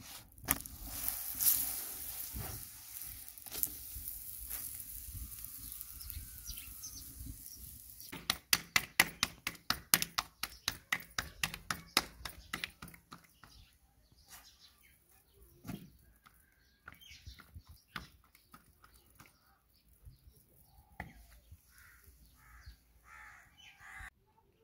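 Food being cooked on an iron griddle over a clay stove, with a fast run of sharp clicks and clinks from utensils for several seconds about a third of the way in. Short bird calls come near the end, tagged as crows cawing.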